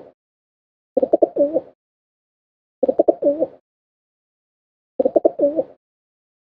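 A dove cooing: the same short phrase of a few low pulsed coos ending in a bending note, repeated three times about every two seconds.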